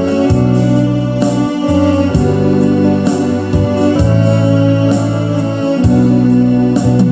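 Electronic keyboard playing a gospel song instrumentally, held chords over a bass line that moves to a new note every second or so.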